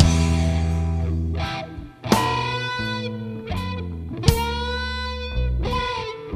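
Instrumental passage of a band's song: guitar notes ringing over a steady low bass, with new notes struck about two seconds in and again past four seconds.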